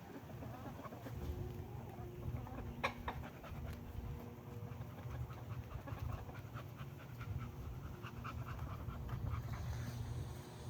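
Dog panting steadily over a low steady hum.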